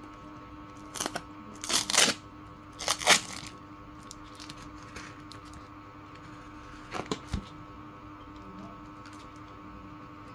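Short scraping, cracking and clicking noises of hands and tools working on a small JBL speaker, in a few bursts with a long gap in the middle, over a steady faint hum.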